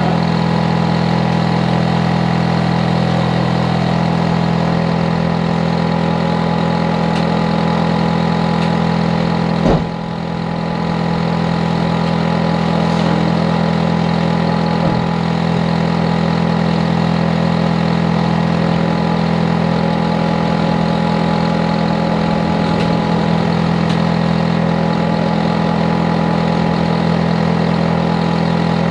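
Hitachi air-conditioner outdoor unit running with a loud, steady hum of compressor and fan, strongest in a low drone. It runs overly hard and loud, the noise nuisance the recording was made to document. A single sharp knock sounds about ten seconds in.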